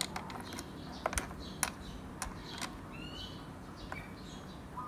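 Allen key turning a screw into a metal kayak fitting: a run of small, sharp, irregular metallic clicks, about ten of them, most packed into the first three seconds.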